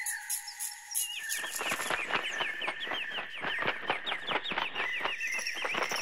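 Bird calls: a rapid, unbroken chatter of short chirps, several a second, starting about a second in, over a steady high tone.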